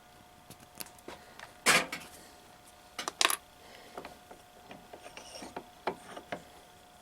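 Scattered small clicks and knocks of hands and tools working at a car's shifter linkage, with a louder short rattle about two seconds in and a quick double knock about three seconds in. A faint steady hum runs underneath.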